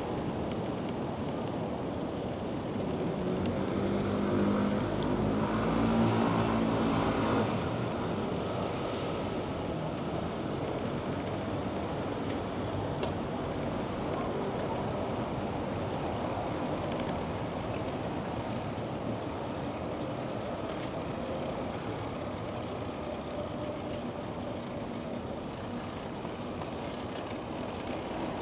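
Steady city street traffic noise. A louder engine passes about four to seven seconds in.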